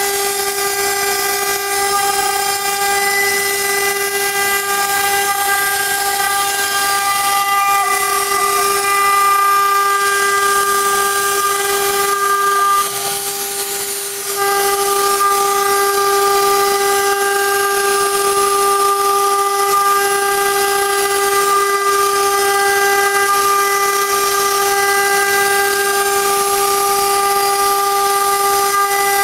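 CNC router spindle running at a steady high whine while its bit cuts through MDF sheet, with a hiss of cutting noise over it. About halfway through, the level drops and the whine thins for a second or two, then comes back.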